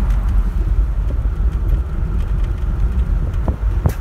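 Cabin noise of a 1962 Cadillac driving with its windows up: a steady low rumble from the 390 V8 and the tyres. A sharp click comes near the end.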